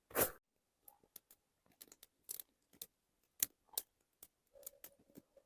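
Small campfire of spruce twigs crackling: irregular sharp snaps and pops a few times a second, one louder crack at the very start.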